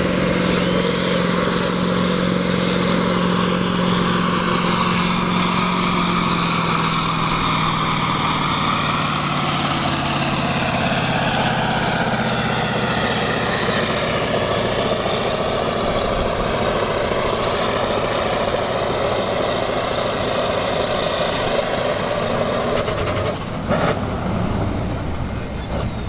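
Kirovets K-700A tractor's turbocharged diesel engine running flat out under full load while it pulls a weight-transfer sled, its pitch sagging as the load builds. A high turbo whistle sits over it. Near the end there is a short sharp noise as the throttle comes off, and the whistle falls away as the turbo spools down.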